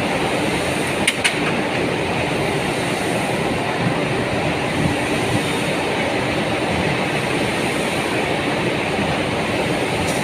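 CNC bending machine running with a steady, noisy mechanical drone, with two sharp metallic clicks about a second in and a few lighter knocks later.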